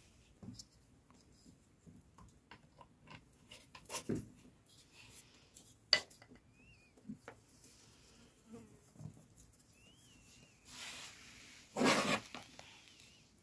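Hands working dough and flour among metal bowls and a tray: scattered soft taps and clinks, a sharp click about six seconds in, and a louder scraping rustle of flour near the end. Faint short high chirps come twice.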